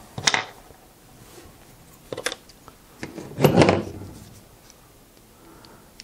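Small plastic insulated crimp connectors and hand tools being handled on a hard tabletop. There are a couple of light clicks, then a louder rattling clatter about halfway through.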